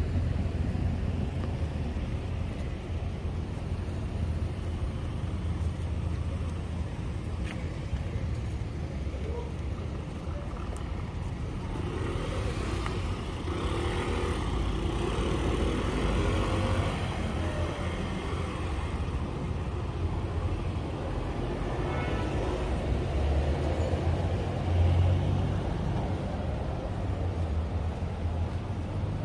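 Urban street ambience: a steady low traffic rumble with people's voices passing, most clearly about halfway through.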